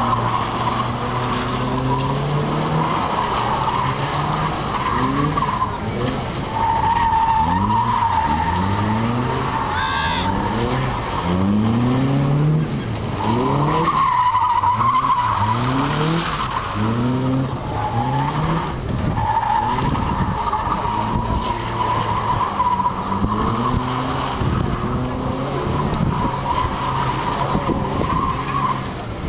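Lotus Seven–style kit car drifting: the engine revs rise again and again in short surges as the throttle is worked, over an almost unbroken squeal of the sliding tyres.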